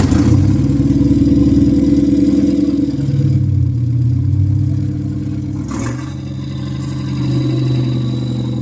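Freshly rebuilt GAZ-69 four-cylinder side-valve engine running steadily just after it has been got to start, with a brief sharp noise about six seconds in.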